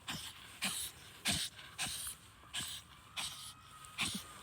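A dog snorting and huffing in short, noisy bursts, about one every half second or so, while nosing into a mole hole.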